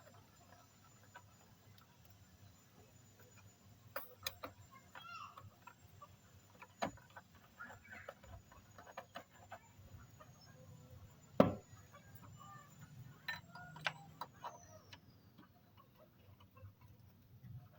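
Scattered clicks and knocks of tools and metal parts being handled during scooter clutch work, with one sharper knock about eleven seconds in. A faint, steady high whine runs underneath and slides down in pitch near the end.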